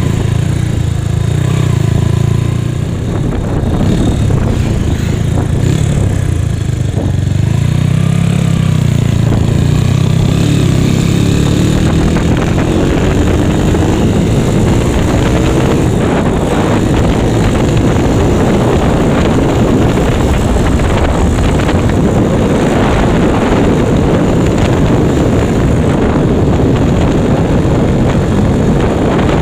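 Honda Megapro single-cylinder four-stroke engine in a Yamaha Mio scooter running while riding, its pitch climbing about ten seconds in as it accelerates, then holding steady under way with heavy wind noise on the microphone.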